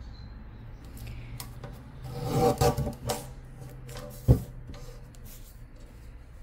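Guillotine paper cutter's blade arm brought down through a sheet of heat transfer paper: a rasping slice about two seconds in that lasts about a second, then a single sharp clack a second later.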